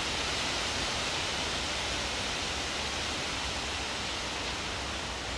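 Steady rushing hiss of wind through the leaves of trees, even in level with no distinct events.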